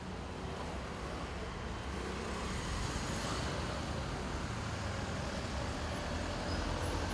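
Steady urban traffic noise: an even rumble and hiss of road traffic with no distinct events standing out.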